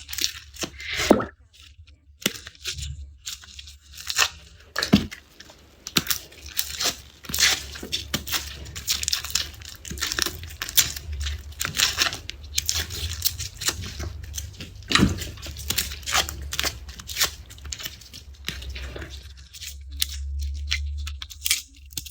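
Papery garlic skins being peeled off the cloves by hand, crackling and tearing in quick irregular snaps, with a low rumble near the end.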